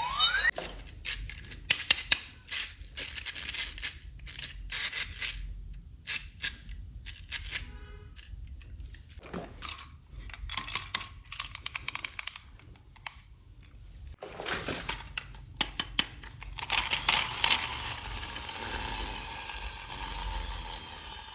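Plastic toy parts and packaging being handled: a string of sharp clicks, taps and scrapes, then about four seconds of steady rustling near the end.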